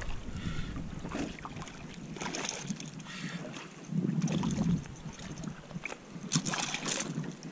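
A hooked sea bass splashing and thrashing at the water's surface as it is drawn in and grabbed by hand, with a few short splashes, the loudest a little over six seconds in. Wind buffets the microphone throughout, hardest about four seconds in.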